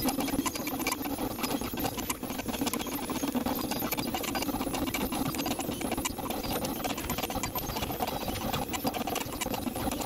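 Voltera solder-paste dispensing machine running, its motors driving the dispensing head over the board: a continuous, fast mechanical clatter of closely packed ticks over a steady hum.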